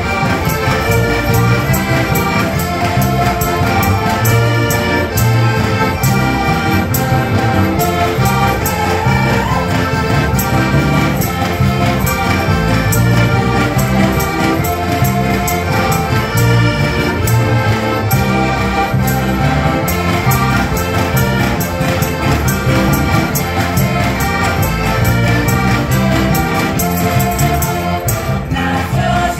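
Slovak folk band playing an instrumental passage, heligónky (diatonic button accordions) carrying the tune over a steady bass and guitar beat.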